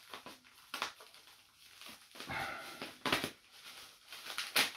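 A package being opened by hand: packaging rustling and crinkling, with a few sharp rips or snaps, the loudest near the end.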